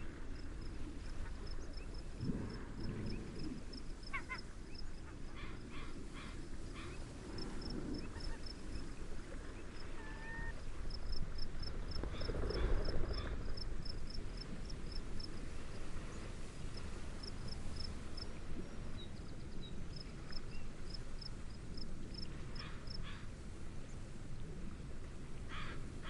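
Steady rush of wind and gentle waves, with a cricket chirping in a regular pulse and scattered bird calls.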